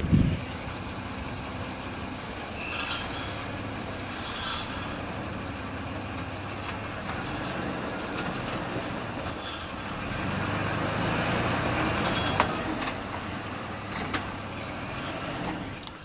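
2003 Ford E150 van's V6 engine running, with scattered sharp clicks over it: the strange knocking noise the owner cannot trace, mixed with rattle from a loose exhaust heat shield. It gets louder for a few seconds from about ten seconds in.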